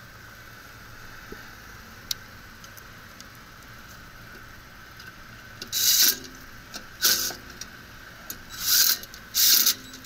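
Cordless drill/driver run in four short trigger bursts in the second half, each under half a second.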